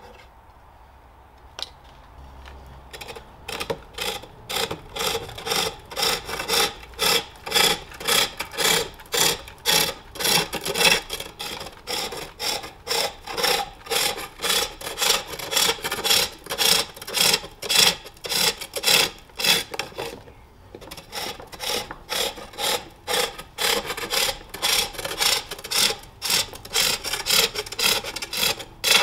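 A hand-forged hook tool cutting a jacaranda bowl blank on a spring pole lathe: a rhythmic scraping shave of the tool on the spinning wood, one cut with each downstroke of the treadle, about two a second. The cutting starts about two seconds in and stops briefly about two-thirds of the way through.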